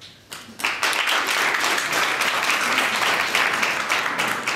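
A few scattered claps, then an audience breaking into applause about half a second in, fading near the end.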